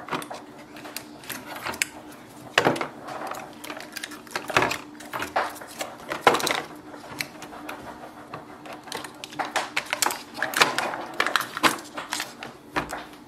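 Irregular plastic clicks and knocks as the ink tanks of an Epson EcoTank ET-3830 printer are pushed back, slid sideways and lifted out of their housing, over a faint steady hum.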